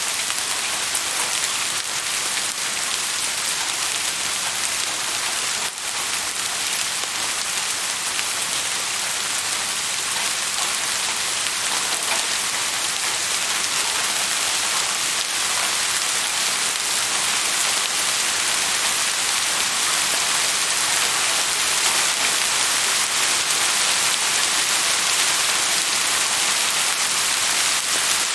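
Steady rain falling, a dense even hiss with a brief dip about six seconds in.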